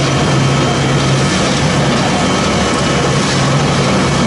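Sawdust pellet mill running: a loud, steady machine noise with a low hum, as freshly pressed wood pellets stream out of its discharge chute.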